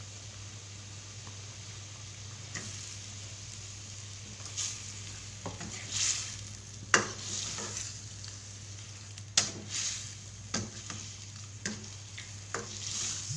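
A metal ladle stirring fish pieces into a pot of simmering curry: a steady hiss with scattered clinks and scrapes of the ladle against the pot, the sharpest about seven seconds in.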